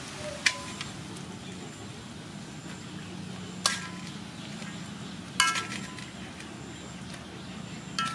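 A metal utensil clinking against a metal wok of stir-fried noodles, a few sharp ringing strikes spaced seconds apart with a couple close together near the end, over a steady low sizzle of the noodles frying.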